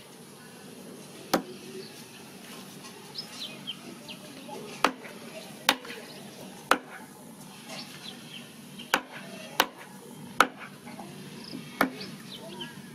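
Large kitchen knife chopping raw chicken feet against a wooden chopping block: about eight sharp chops at irregular intervals.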